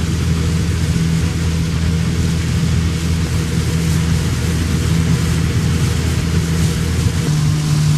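Small fishing boat's outboard motor running under way, a loud steady drone with a hiss of wind and water over it; its pitch shifts a little about seven seconds in.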